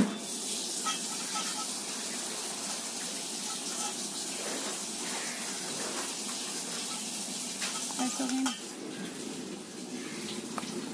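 A fork tossing shredded cabbage and sliced raw vegetables in a steel bowl: a steady crisp rustle, with a few sharp clinks of the fork against the bowl.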